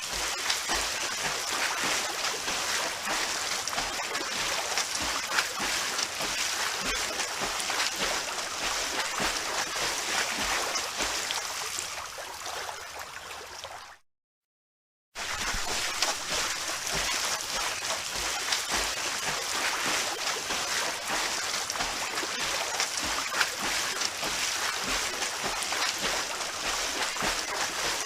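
Swimming in a pool: continuous splashing and sloshing of water. It fades out about halfway through, drops to complete silence for about a second, then starts again suddenly.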